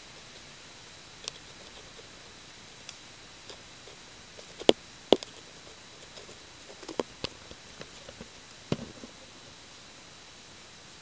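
Scattered sharp clicks and taps over a steady faint hiss, the two loudest about half a second apart near the middle.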